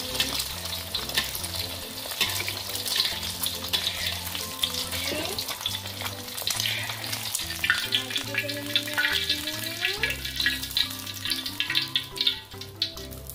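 Egg frying in hot garlic oil in a wok, a steady crackling sizzle, with a metal spatula scraping and moving the egg in the pan.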